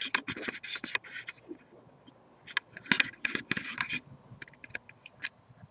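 Scraping and rubbing handling noise as the camera is moved about, in two bursts of a second or so each, followed by a few scattered light clicks.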